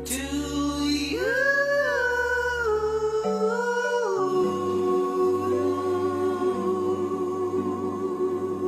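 A solo singing voice moves through a few notes, then holds one long note with vibrato from about four seconds in, over soft sustained backing music.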